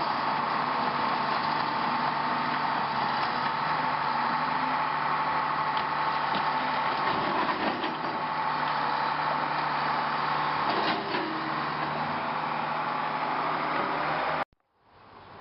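A motor vehicle's engine running steadily with a constant drone, cutting off abruptly near the end.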